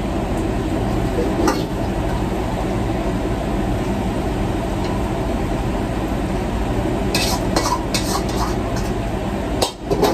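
Food being stir-fried in a wok over a restaurant wok station, with a steady rushing noise from the burner and hood throughout. In the second half a metal ladle clanks and scrapes against the wok several times in quick succession.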